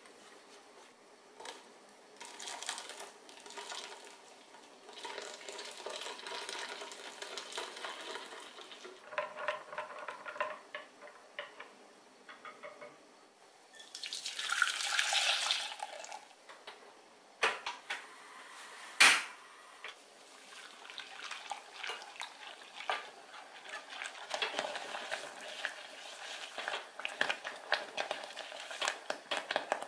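A wire whisk beating a custard mixture of egg yolks, milk and cornstarch in a glass bowl. About halfway through the mixture is poured into a saucepan with a splashing rush, followed a few seconds later by one sharp click, the loudest sound. After that the whisk stirs and scrapes in the pot.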